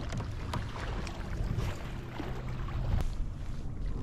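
Kayak on the water: a steady low rumble of water and wind noise, with a few light knocks against the hull.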